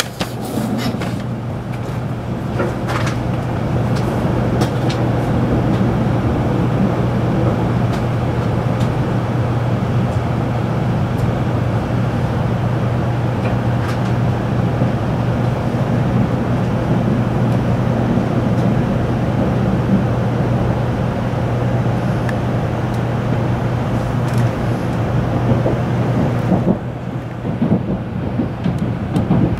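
Running noise heard inside a Shinkansen car: a steady low hum under an even rushing hiss. Near the end the hiss drops away as the train slows into the station.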